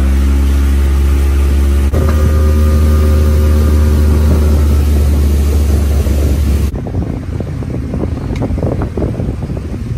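Motorboat engine running steadily with the boat underway. It cuts off abruptly about seven seconds in, leaving uneven wind and rumbling noise with scattered knocks.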